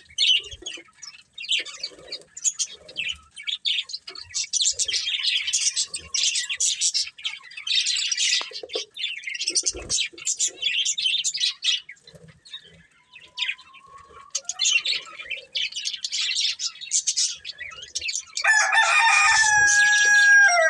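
Budgerigars chirping and chattering in a stream of quick, high, short chirps. Near the end a louder held tone cuts in for about two seconds and dips in pitch as it ends.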